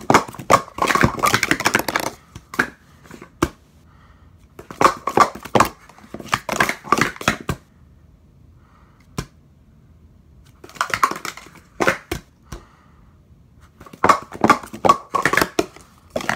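Speed Stacks plastic sport-stacking cups clacking rapidly as they are stacked up and down in 3-3-3 runs on a stack mat, in four bursts of quick clicks a few seconds apart.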